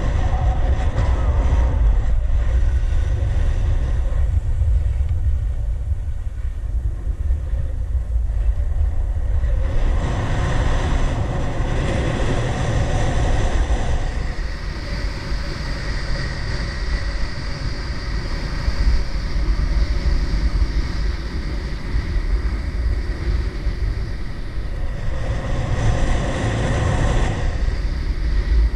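Skis sliding and scraping over packed, groomed snow on a downhill run, under a steady rumble of wind buffeting the body-mounted camera's microphone. The scraping turns harsher and hissier in two stretches, about ten seconds in and again near the end.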